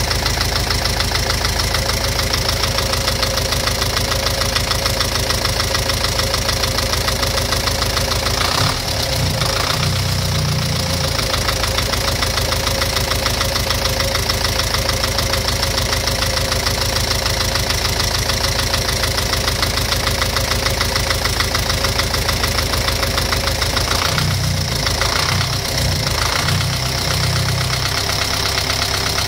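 Car engine idling with a steady, rapid knock from inside the engine, the knocking fault being shown. The engine note shifts briefly twice.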